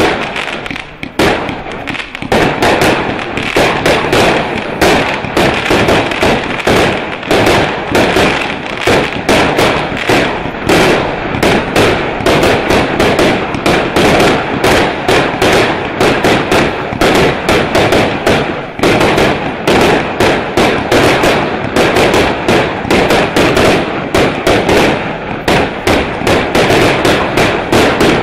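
Celtic Fireworks Blitzkreig, a fanned single-ignition rocket barrage, firing continuously: a rapid, unbroken string of launches and bursting breaks, several bangs a second.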